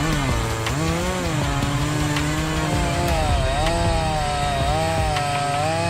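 Two-stroke chainsaw cutting wood under load. Its engine pitch sags and recovers as the bar bites during the first couple of seconds, then holds fairly steady with slight wavering.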